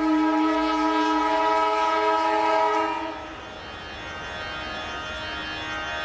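Train horn held on one steady note, cutting off about three seconds in, leaving the noise of a train running with fainter tones rising again near the end.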